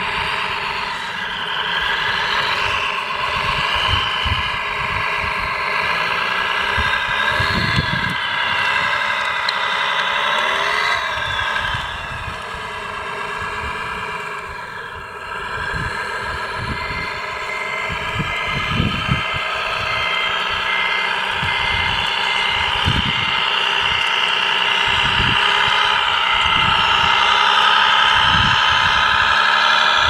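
Radio-controlled Caterpillar D9 dozer model running, its motor sound steady with some rises and falls in pitch as it works the gravel. Scattered knocks and crunches of stones under the tracks and blade.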